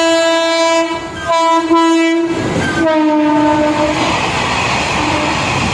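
Indian diesel locomotive's air horn sounding in long blasts as the train approaches, the last blast sliding down in pitch as the locomotive passes close by. Then comes the steady rolling noise and clatter of goods wagons going past at speed.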